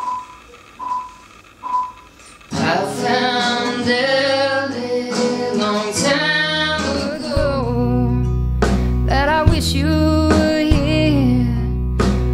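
Four short single notes ring about a second apart. Then, from about two and a half seconds in, a woman sings over a strummed acoustic guitar, and a deep bass joins about seven seconds in.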